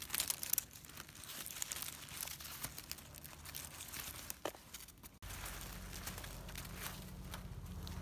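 Dry leaves, twigs and pine needles rustling and crackling as a gloved hand picks winter chanterelles from the forest floor. About five seconds in, a steady low rumble starts abruptly and carries on.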